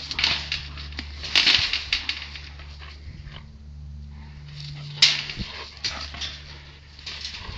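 A deer thrashing inside a wire hog trap: hooves scuffling in the straw and its body knocking against the rusty wire panels in several rattling bursts, the loudest about five seconds in. A steady low hum runs underneath.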